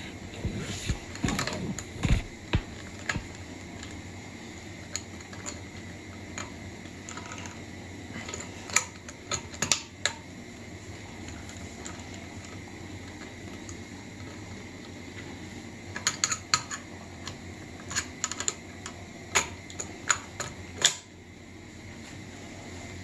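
Light, irregular clicks and rattles of a screwdriver working the metal wire terminals of an air compressor's pressure switch as the wires are taken off. The clicks come in clusters with pauses between them, over a steady background hum.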